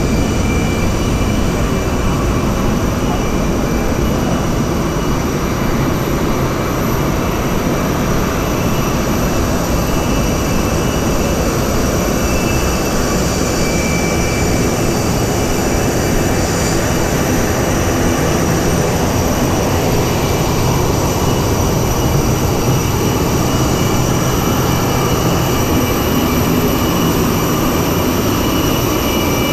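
Jet airliner turbine noise: a loud, steady rush with thin, high, steady whining tones over it.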